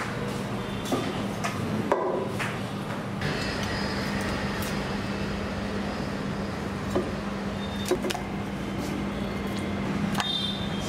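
Steady background noise with a low hum, broken by scattered short knocks and clinks, the loudest about two seconds in and again about eight seconds in.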